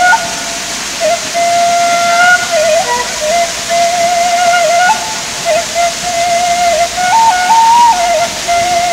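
A slow flute melody of long held notes, stepping up and down in pitch, over a steady rush of falling water.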